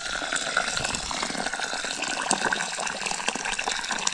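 Hot water poured in a steady stream from a kettle into an aluminium pressure-cooker pot, splashing as the pot fills.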